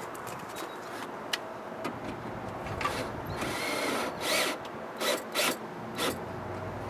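Metal parts scraping and clicking as a power window regulator is worked into place inside a car door, in several short scrapes with small squeaks partway through.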